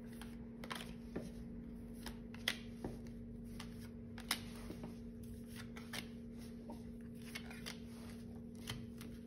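Oracle cards being dealt one after another from the deck and laid on a cloth-covered table: scattered soft taps and slides of card stock at irregular intervals.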